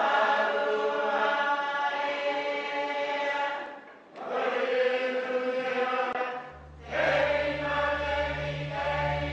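Church choir of many voices singing a hymn in parts, with long held notes and two brief breaks between phrases. A low steady tone comes in under the voices about two-thirds of the way through.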